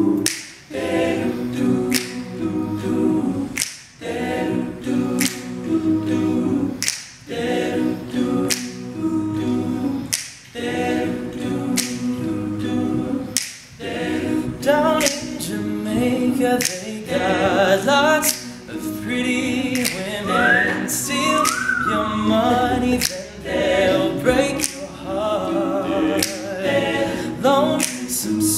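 All-male a cappella group singing in close harmony: held chords under sharp clicks that keep a beat about every second and a half. About halfway through, a solo lead voice with vibrato comes in over the backing harmonies.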